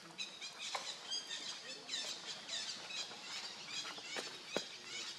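Baby macaque making high, squeaky calls over and over, several a second, many of them short falling chirps. A single sharp tap about four and a half seconds in.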